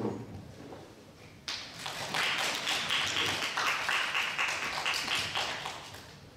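A small group of people clapping their hands. The applause starts suddenly about a second and a half in, holds for a few seconds, and dies away near the end.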